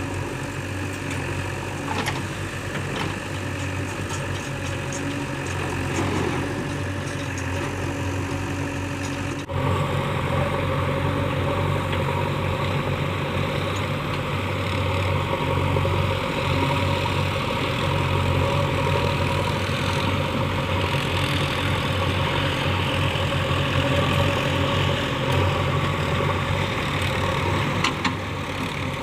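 Diesel engine of a JCB 3DX backhoe loader running steadily near idle, with a few short knocks. About nine and a half seconds in the sound changes abruptly and runs a little louder.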